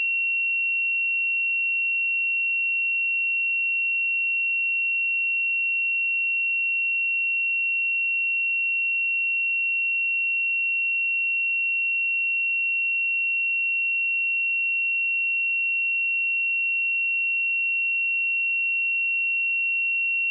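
A pure 2731 Hz sine-wave test tone, held steady at one pitch and level.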